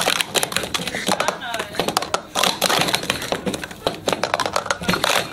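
Plastic sport-stacking cups clattering as two people stack and unstack them together at speed in a doubles cycle: a fast, continuous run of light clicks and clacks as cups are set down and slid into stacks.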